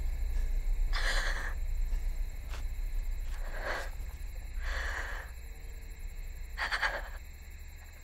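A person breathing hard in four ragged, gasping breaths, over a low rumble that fades away.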